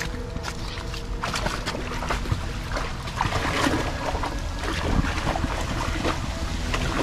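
A long-coated German Shepherd wading through a shallow, rocky creek, his legs sloshing and splashing the water in irregular, uneven splashes.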